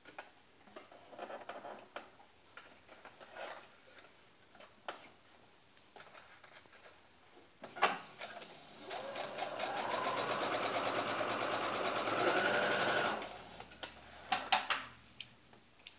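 Brother XR3140 computerized sewing machine running in one run of about four seconds, its pitch rising as it goes, stitching small, very narrow seams. It is preceded by soft fabric handling and a click, and followed by a few light clicks.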